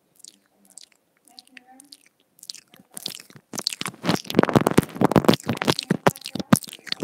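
Teeth and lips nibbling on the inline microphone of a pair of wired earphones, giving close, crackling mouth clicks. They are sparse and faint at first, then turn into a dense, loud run of clicks about halfway through.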